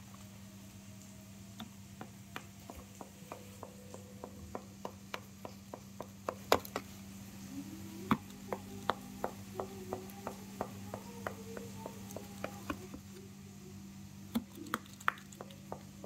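Knife sawing into a soft rolled sponge cake inside a cardboard box: a steady run of light clicks, about two or three a second.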